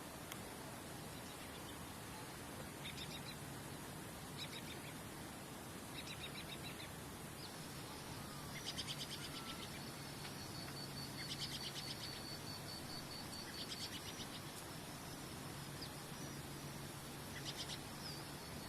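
Birds chirping in short, rapid high trills, repeated every second or two, over a constant background hiss. From about halfway in, a thin, high, continuous note runs beneath the trills.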